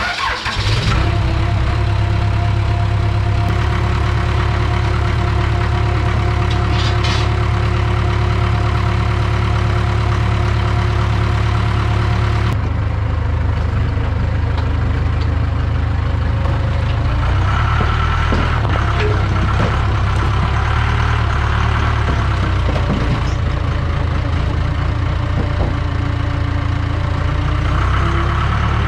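Diesel engine of a Case 590 Super K backhoe loader catching right away after a jump-start on a dead battery, then running steadily. The sound changes abruptly about twelve seconds in, and later the engine note rises and falls a little as the machine works.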